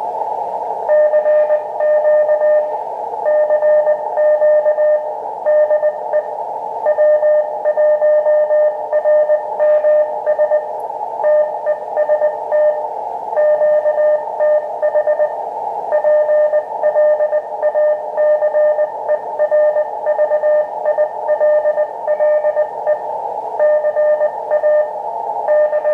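A Morse code (CW) signal received on an Elecraft KX2 HF transceiver on the 20-metre band: one steady-pitched beep keyed on and off in dots and dashes, over a steady hiss of band noise narrowed by the receiver's CW filter.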